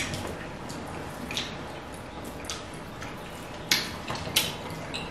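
Wet eating sounds of fufu and egusi soup eaten by hand: scattered smacks and squelches from mouths chewing and fingers working the soft dough in the soup. The sharpest smacks come about a second and a half in and twice near the end.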